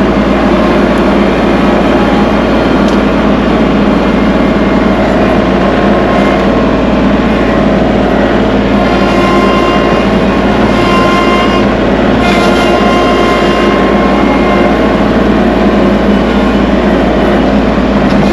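Kubota tractor engine running loud and steady, holding a constant pitch while working.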